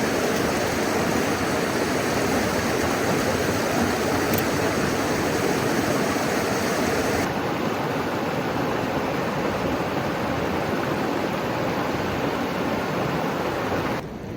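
Steady rush of fast-flowing mountain water, loud and even, with a slight change in tone about halfway through.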